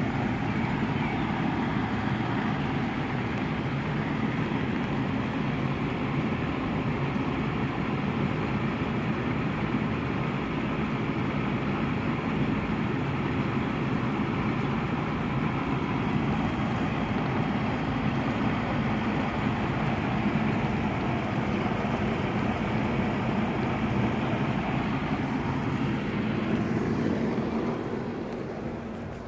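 Steady mechanical hum with a low rumble, unbroken until it fades away near the end.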